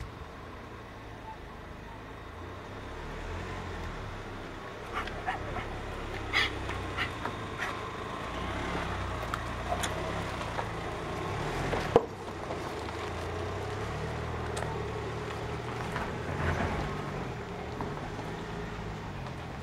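Dogs meeting: a few short dog vocalizations and some panting over a steady low rumble, with one sharp knock about twelve seconds in.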